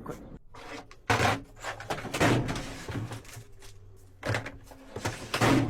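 A Holden's doors and central locking clunking and thudding about five times in a few seconds, as the newly programmed key and remote are tried on the car.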